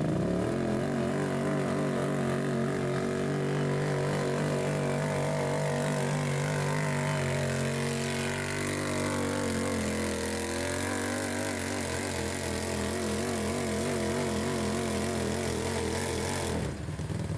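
Can-Am Outlander pulling ATV running hard under load as it drags a weight-transfer sled. The engine note wavers and sags about halfway through as the drag builds, and the throttle is cut near the end.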